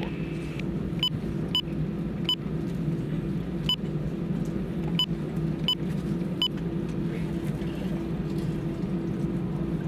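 Airbus A320 cabin noise while taxiing: a steady low hum of the engines at idle, with a few sharp ticks at irregular intervals.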